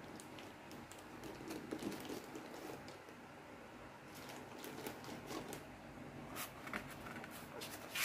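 Rustling and light knocks of packaging being handled: a plastic-wrapped bathroom scale is lifted out of its cardboard box, then a paper leaflet and cards crinkle under the hand, loudest near the end.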